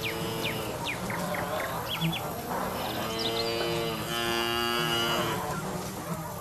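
Cattle mooing: a short call at the start, then two long calls back to back in the second half, with small birds chirping over a farmyard background.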